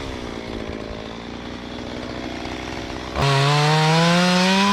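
Stihl two-stroke chainsaw running steadily at a lower speed, then throttled up sharply about three seconds in, its pitch climbing steadily while held at full throttle.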